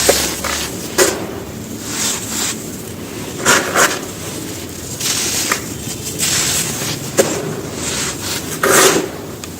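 Dry sand-cement chunks crumbling, with a run of gritty crunching and rubbing broken by sharp, crisp snaps every one to three seconds.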